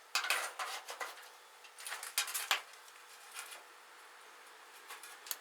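Irregular light clinks and clatter of small hard objects, in short bursts with quieter gaps between them.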